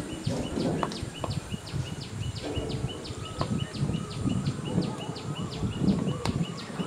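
Outdoor ambience: a short, high chirp repeating evenly about three to four times a second from a calling animal, over low wind rumble on the microphone.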